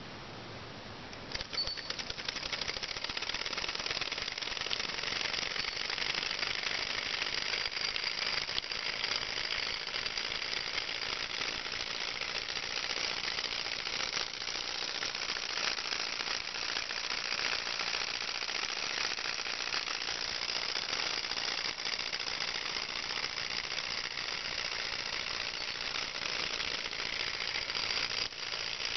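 Model hot-air Stirling engine running fast, a steady rapid mechanical clatter from its piston, displacer and flywheel linkage; it comes in suddenly about a second in. The engine is under load, driving a small generator that lights an LED.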